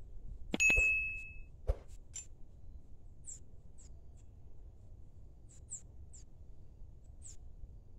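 Small metal garden hand tools knocking against each other and the soil while dry grass is raked: a few sharp knocks in the first two seconds, one about a second in with a short metallic ring. After that, a scatter of faint, short, high bird chirps.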